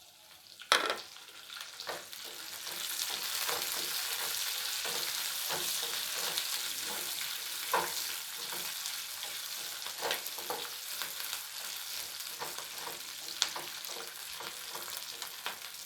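Chopped onion tipped into a pan of hot oil with frying garlic: a sharp clatter about a second in, then a steady sizzle that swells over the next couple of seconds, with the scrape and tap of a spoon stirring.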